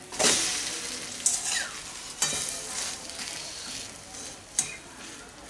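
Egg omelette sizzling in mustard oil in a steel kadai as it is flipped with a steel spatula. A loud burst of sizzle comes just after the start and fades, then the spatula taps and scrapes sharply against the pan a few times.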